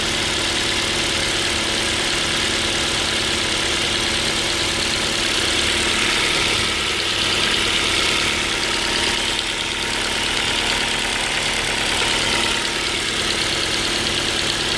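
Ford Focus 2's Duratec HE 2.0 four-cylinder petrol engine idling steadily while warming up, with a knock that has come in at about 33 °C coolant temperature. The knock sounds like a piston-pin knock, though the owner doubts it is the pin because it appeared only as the engine warmed.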